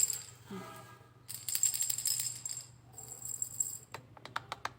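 Montessori sound-box cylinders being shaken beside the ear, their contents rattling in two hissy bursts, then a quick run of sharp clicks near the end. The cylinders are being compared to find the softer of the two.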